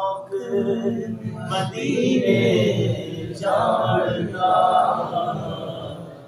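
A man singing a Punjabi devotional kalam (naat) unaccompanied, in long, wavering held notes.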